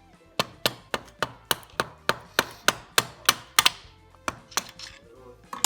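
A hammer striking repeatedly: about a dozen sharp, evenly spaced knocks at roughly three a second, then a few scattered knocks near the end.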